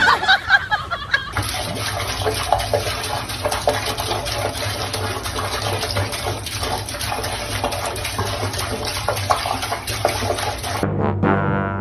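Tap water running into a sink, splashing against a cat's paw held in the stream. It cuts off suddenly near the end.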